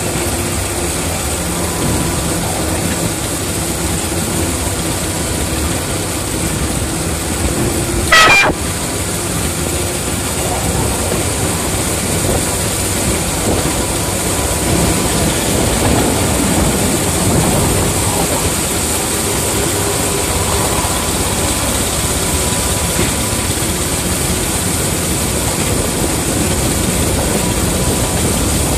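Ride-on miniature railway locomotive, a model of a class 31, running steadily along the track, heard from the driver's seat. There is a single brief, loud, sharp high-pitched sound about eight seconds in.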